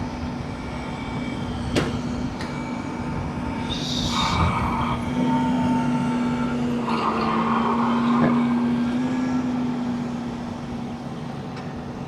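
A steady motor drone over rumbling ride noise, growing louder in the middle with two brief higher-pitched swells. There is a sharp click about two seconds in.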